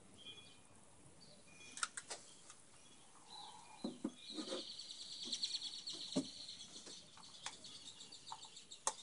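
Faint bird chirping, with a rapid high trill lasting a few seconds from about four seconds in, and a few sharp clicks and light knocks scattered through.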